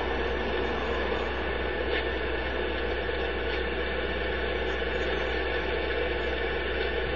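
Steady hiss with a low hum underneath, unchanging throughout and with no speech.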